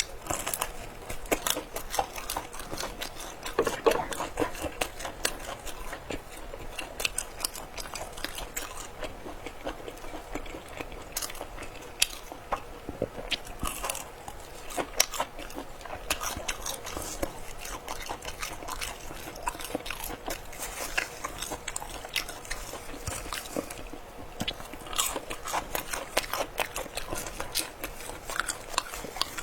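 Close-up crunching and chewing of crispy fried pork intestines: irregular sharp crackling bites and chews throughout.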